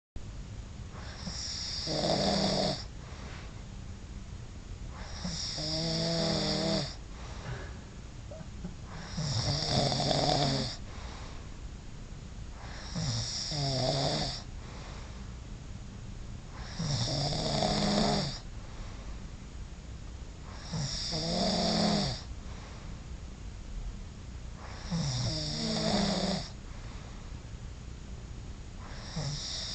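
Loud snoring from a sleeper, one snore about every four seconds, each lasting about a second and a half.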